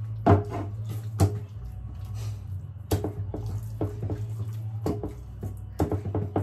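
Wet squelching and smacking of raw steak as it is rubbed and kneaded by hand with olive oil and seasoning: a string of short, irregular slaps over a steady low hum.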